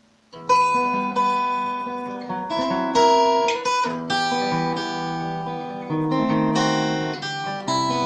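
Classical guitar played fingerstyle: a passage of quick plucked single notes over ringing bass notes, starting about half a second in.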